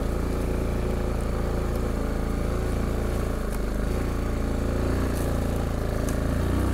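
Yamaha Kodiak 450 ATV engine running steadily as the four-wheeler is ridden, with a brief dip about halfway through and a slight rise in level near the end.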